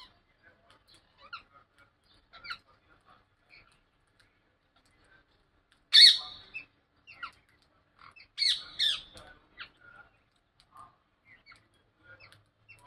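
Parrots giving short, scattered chirps, with one loud call about six seconds in and another loud run of calls a couple of seconds later.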